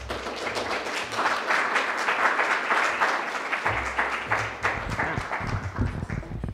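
Audience applauding: dense clapping that starts abruptly, holds steady, and tapers off near the end, with a few low thumps in the last couple of seconds.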